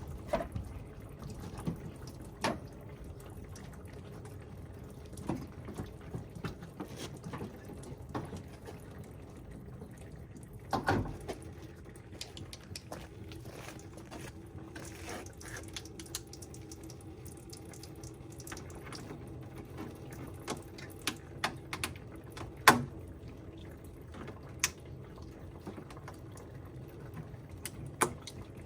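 Engine coolant draining out of a pickup's cooling system, trickling steadily into a catch pan, with scattered light clicks and a few knocks.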